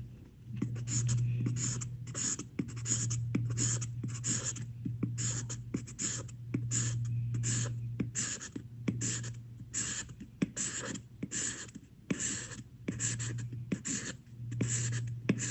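Pencil scratching on paper in quick back-and-forth hatching strokes, about two to three a second, as a dark area of a sketch is filled in. A low hum comes and goes underneath.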